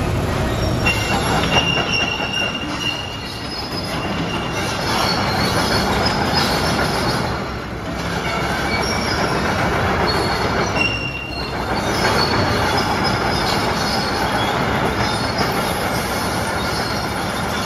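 Volvo ECR145DL crawler excavator travelling on its steel tracks: a steady mechanical clatter of track links with short high-pitched squeals coming and going, over the running engine.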